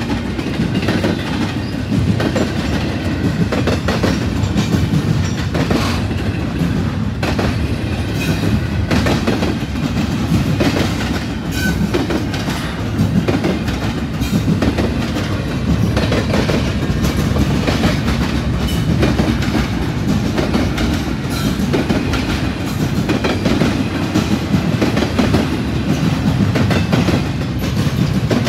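Double-stack container freight train rolling past, loud and steady: the wagons rumble and their wheels clack over the rail joints.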